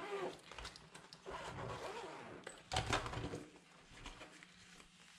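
Zipper on a nylon packing bag being pulled open and the fabric lid handled, with rustling and a brief louder scrape about three seconds in.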